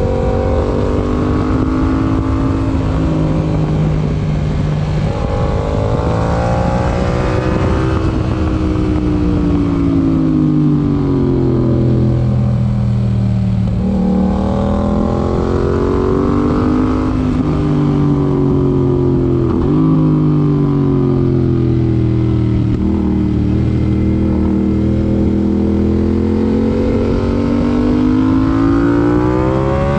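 Yamaha MT-07's parallel-twin engine through an IXIL IXRace MK2 aftermarket exhaust, under way: the engine note rises and falls several times as the bike accelerates and eases off, climbing again near the end.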